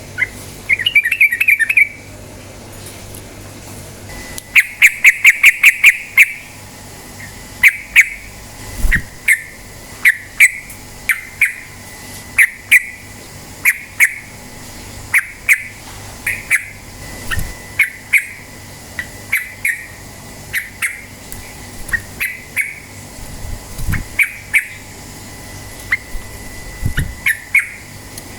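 Yellow-vented bulbul (trucukan) singing: short bright chirped phrases repeated about once a second, broken about five seconds in by a rapid run of quick notes, the fast 'ropel' delivery.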